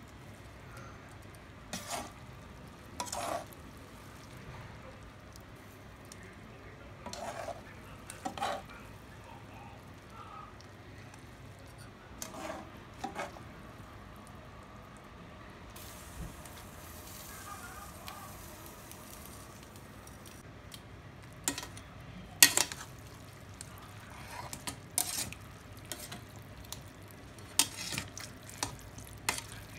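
Spaghetti in ketchup sauce being stirred and tossed in a pot with a metal utensil: scattered clinks and scrapes of metal against the pot, loudest about two-thirds of the way through, with a brief soft hiss in the middle.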